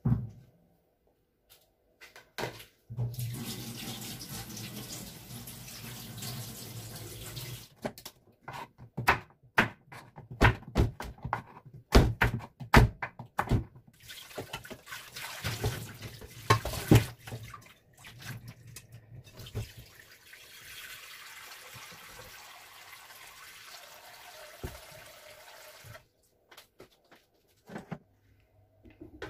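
Kitchen tap running into a stainless steel sink while a metal bowl is rinsed. In the middle there is a run of clatters and knocks of the bowl against the sink, then the water runs steadily again until shortly before the end.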